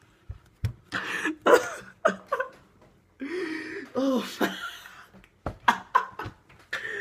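A young man laughing hard and uncontrollably in short breathy bursts, with gasps for breath between them.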